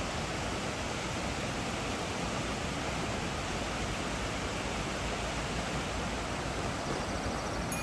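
Steady, even rushing noise with no separate events or tones.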